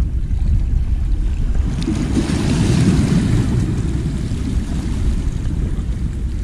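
Wind buffeting the microphone over small waves washing against the rocks of a seawall. The waves surge and splash louder for a second or so about two seconds in.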